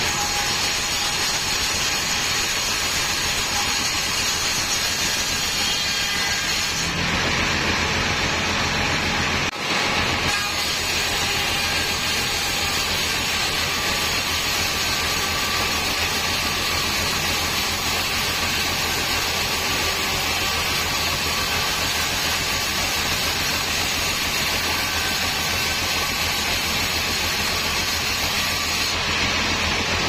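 Band sawmill running steadily, its blade ripping lengthwise through a stack of teak boards, with a steady hum from the machine's drive.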